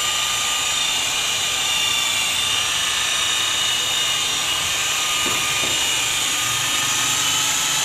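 Corded electric rotary polisher running steadily with a high-pitched whine as its pad buffs a car's painted door during paint correction.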